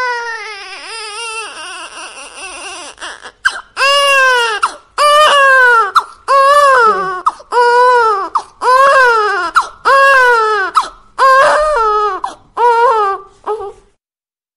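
An infant crying: about ten loud wails in a row, each roughly a second long, rising and falling in pitch, after the last sung note fades out; the crying stops shortly before the end.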